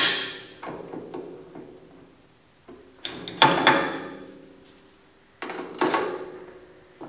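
Chromed steel planishing die being fitted into the tool holder of a Mini Max Proline (mini Pullmax) metal-shaping machine: a series of sharp metal-on-metal knocks and clinks, several of them ringing briefly, with quiet gaps between.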